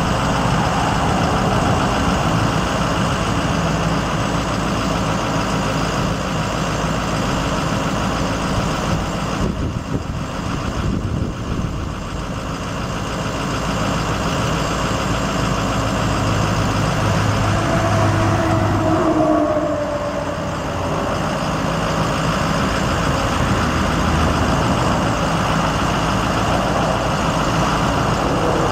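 The 2004 Ford F650's International VT365 6.0 L V8 turbo diesel idling steadily, with a brief whine that slides down in pitch about two-thirds of the way through.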